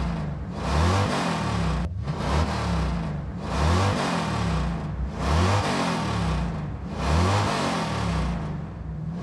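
Motor vehicle engine sound effect revving up and falling back over and over, a cycle roughly every one and a half seconds, with a brief cut about two seconds in.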